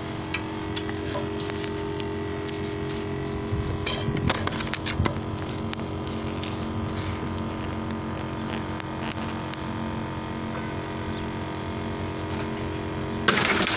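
Small pump running with a steady hum as it pressurizes a large plastic water bottle, with a few light clicks along the way. About 13 seconds in, a sudden loud rush of water and air as the bottle blows off its fitting under the pressure.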